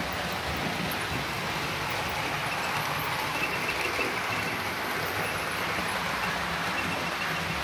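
Model trains running on the layout's track: a steady rolling rumble of metal wheels on rail with electric motor hum. A faint high-pitched tone comes in briefly twice.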